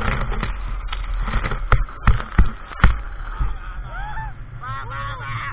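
People shrieking and calling out with rising-and-falling voices over a steady low drone. Four sharp knocks come about two seconds in.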